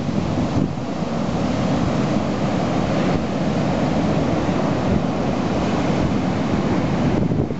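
Rough storm surf breaking and churning in a continuous wash, with wind buffeting the microphone.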